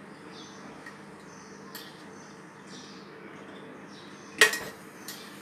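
A steel spoon clinks sharply once against a metal utensil about four and a half seconds in, followed by a lighter tap. Before that only a faint hiss, with soft high chirps repeating about every half second.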